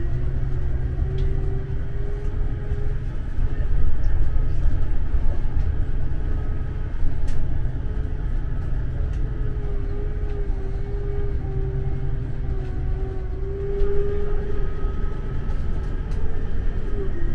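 Inside a moving Scania Caetano Levante 2 coach: steady low engine and road rumble, with a whine that drifts slightly up and down in pitch.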